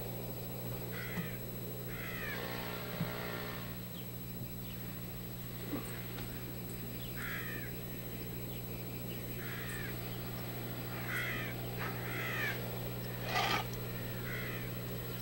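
Short bird calls, each a quick falling chirp, scattered every second or so with a louder one near the end, from the soundtrack of a western film playing on a vintage television. Beneath them runs a steady low electrical hum.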